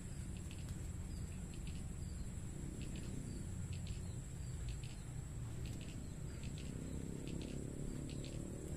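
Insects chirping in short repeated pairs over a steady high-pitched insect drone, with a steady low rumble underneath.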